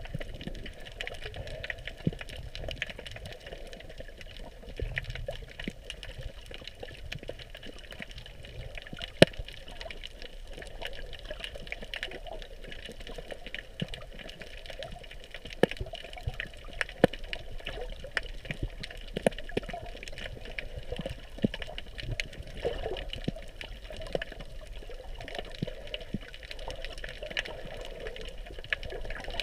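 Underwater ambience picked up by a submerged camera: a steady wash of water noise with many scattered sharp clicks and ticks, a few of them much louder.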